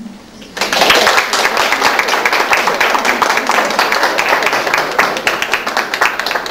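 Small audience applauding, starting about half a second in and holding steady.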